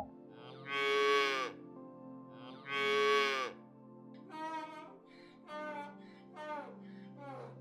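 Cattle mooing: two long, loud moos that drop in pitch at the end, followed by four shorter, fainter falling calls. A steady low drone from background music runs underneath.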